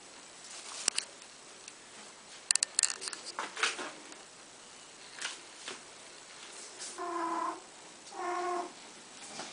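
Domestic cat meowing twice near the end, two even calls about half a second each, after a few light clicks and a brief rustle.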